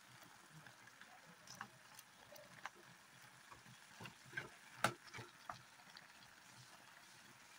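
Metal spoon scraping and knocking against a steel pan while crab pieces are stirred: faint scattered clicks, the loudest knock just before five seconds in.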